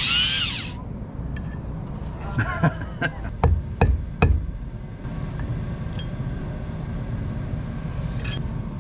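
Cordless drill whining, then spinning down and stopping within the first second as it drills into a sheared bolt in the hydraulic drum motor's steel plate. Then about six sharp hammer blows on metal, about half a second apart, knocking at the broken bolt to get it out.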